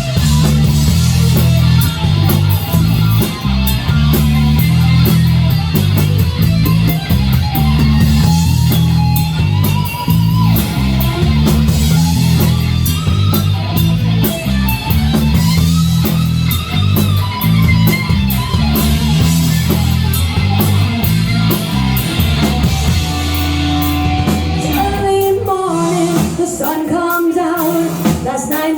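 Loud hard rock music with electric guitar, drum kit and singing. About 25 seconds in, the heavy bass and drums drop away and a lighter passage begins.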